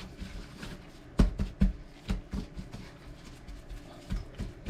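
Hands patting and rubbing seasoning onto raw salmon fillets: a run of soft, irregular thumps and taps, bunched into three short clusters.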